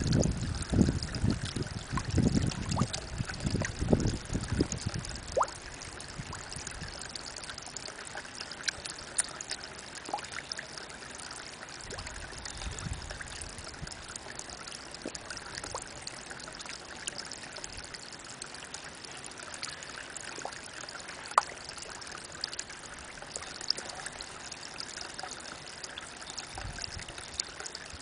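Spring water falling in a thin stream into a pond, a steady trickle and splash with scattered small drips. Low rumbling gusts on the microphone are loudest in the first few seconds and then die away.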